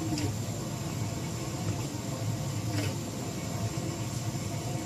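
A steady low rumble, like a vehicle running, with faint voices in the background.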